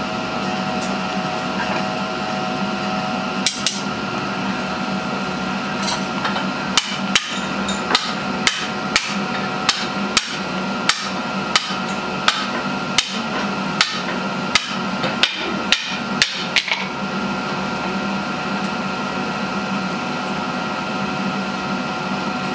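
Hand hammer striking a red-hot white-steel chef knife blank on an anvil to forge its shape: one blow, then a run of about twenty blows at roughly two a second that stops a little past the middle. A steady hum from the burning forge runs underneath.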